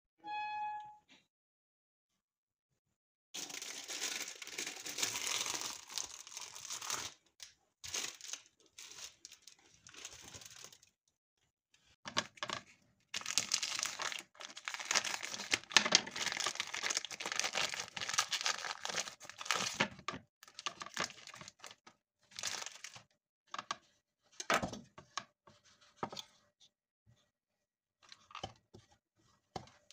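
Plastic wrapping crinkling and tearing in long bursts as a block of cheese is unwrapped, then short irregular rasping strokes of the cheese being grated on a plastic grater over the last several seconds. A brief pitched tone sounds at the very start.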